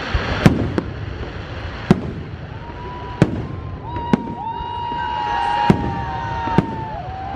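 Aerial fireworks shells bursting in a string of sharp bangs, about six in seven seconds. From a few seconds in, long steady whistling tones run over the bangs.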